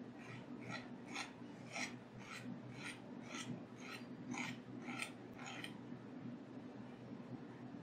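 Ceramic chef's knife mincing a shallot on a cutting board: about eleven even cuts, roughly two a second, each a short slicing stroke of the blade down onto the board, stopping about six seconds in.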